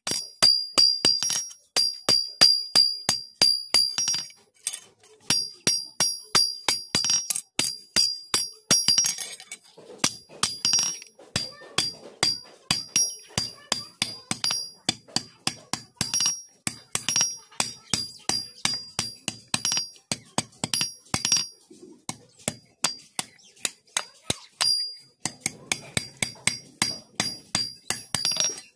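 Hand hammer striking a steel blade on a steel anvil block, curling one end into a round socket. The blows come in a steady run of about three a second, each with a high metallic ring, with a couple of short pauses.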